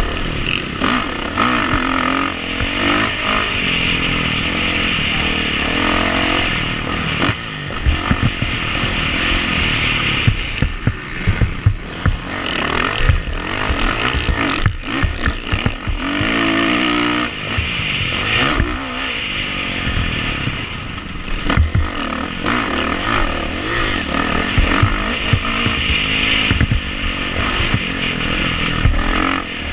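Kawasaki motocross bike's engine at racing load, revving up and dropping off again and again through the gears, picked up by a helmet-mounted camera. Sharp knocks and clatter from the bike over the track's bumps come through repeatedly.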